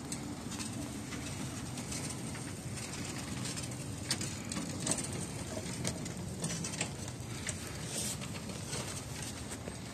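5-inch gauge ride-on miniature train running slowly on its track: a steady low hum from the locomotive's drive, with sharp clicks and knocks from the wheels on the rails, coming more often from about four seconds in.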